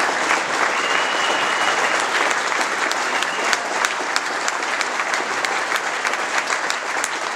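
Audience applauding steadily, a dense patter of many hands clapping, easing a little toward the end.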